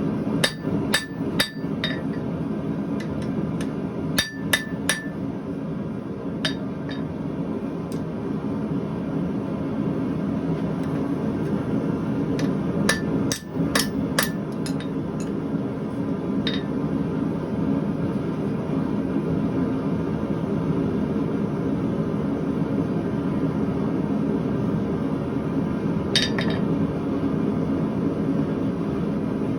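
Blacksmith's hammer striking steel on an anvil in scattered groups of ringing blows, a few quick strikes together then pauses, over a steady low rumble.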